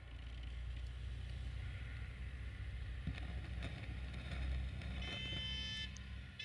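Low, steady rumble of an approaching 060-DA (LDE2100) diesel-electric locomotive's Sulzer engine. About five seconds in there is a brief high-pitched ringing made of several tones.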